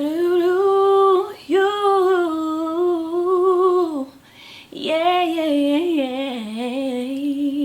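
A woman singing a slow, wordless gospel melody unaccompanied, in three long held phrases with vibrato, with an audible breath between the second and third.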